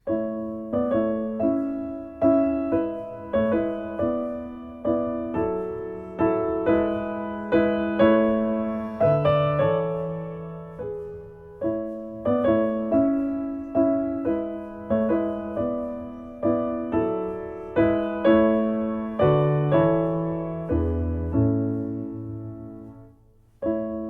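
Gentle solo piano music: single notes and soft chords struck at an unhurried pace, each note fading after it is played, the phrase repeating about halfway through and dying away near the end.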